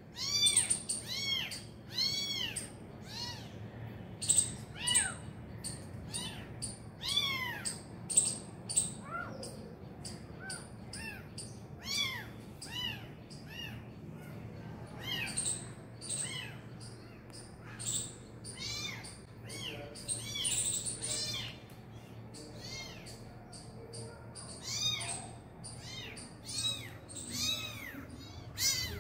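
Young kitten mewing over and over: high-pitched cries that each rise and fall, one or two a second with short breaks. It is a lone kitten crying for its mother.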